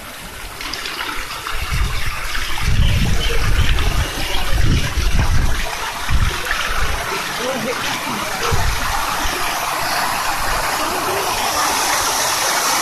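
Fountain jets spraying and splashing into a shallow pool, the rush of water growing louder toward the end as a tall central jet rises. Low rumbles come and go in the first half.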